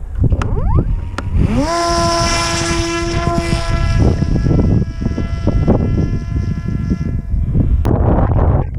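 Stock Parrot Disco's electric propeller motor whining: it spins up about a second and a half in, holds a steady pitch, and fades out about seven seconds in. Heavy wind noise on the microphone runs underneath.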